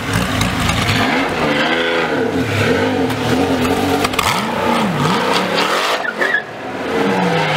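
A sports car engine revving loud, its pitch falling and rising several times, then dropping to a steady note near the end.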